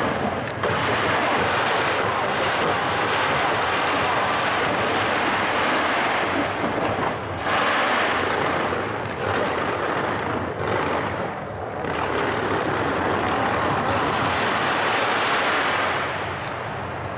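A dense barrage of skyscraper-launched fireworks going off without pause: a steady roar with fine crackles on top, dipping briefly about seven and eleven seconds in and easing off near the end.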